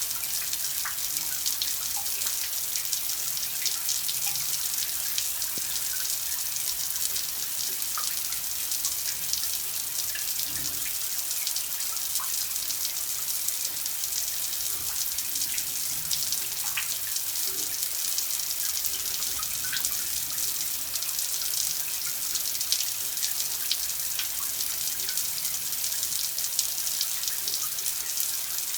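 Steady running water: an even splashing hiss with many small droplet splashes scattered through it.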